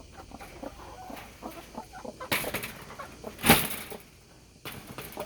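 Domestic hens clucking quietly in a coop, with two brief louder rustling noises, the louder one about three and a half seconds in.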